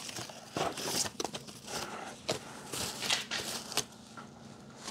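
Slit cardboard packing being handled and lifted out of a cardboard shipping box: light rustling with a scatter of brief clicks and scrapes at irregular times.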